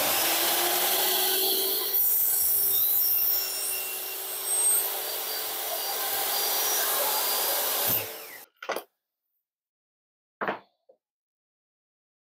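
Table saw running as a crosscut sled carries a small wooden block through the blade for a 45-degree cut, with a brief swell in the noise about four and a half seconds in. The saw noise stops suddenly about eight seconds in, followed by two light knocks.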